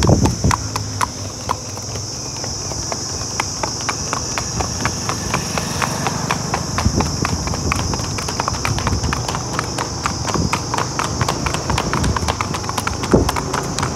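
Hooves of a Marwari horse clip-clopping on a paved road in a quick, even rhythm of hoof strikes.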